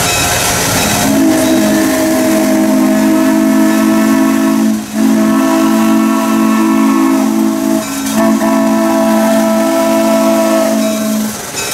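Shay steam locomotive's chime whistle sounding a chord of several steady notes in three long blasts, each cut by only a short break, over the hiss of steam.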